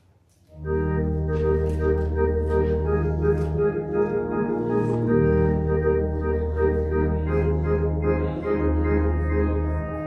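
Church organ beginning the postlude about half a second in, playing sustained full chords over a deep bass line.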